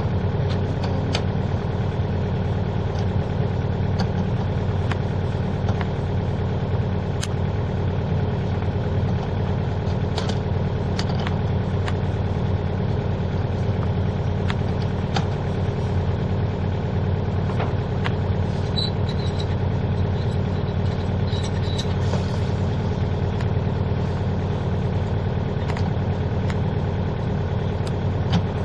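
An engine idling steadily, a constant low hum, with a few short sharp clicks scattered through it.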